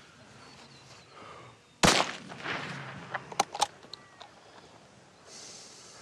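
A single rifle shot from a scoped bolt-action rifle about two seconds in, sudden and loud with a trailing echo: the kill shot at a yearling heifer in an on-farm home kill. Two sharp clicks follow close together about a second and a half later.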